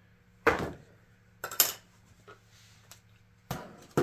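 Hard plastic knocks and clicks from an RC pistol-grip transmitter being handled and set down on a wooden bench: a handful of sharp knocks, one about half a second in, a quick pair about a second and a half in, and more near the end.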